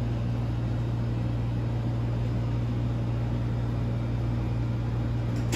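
A steady low mechanical hum over an even hiss, unchanging throughout.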